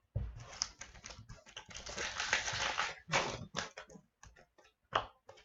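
Foil wrapper of an O-Pee-Chee Platinum hockey card pack being torn open and crinkled for about three seconds, then a run of short clicks and snaps as the cards are pulled out and flicked through by hand.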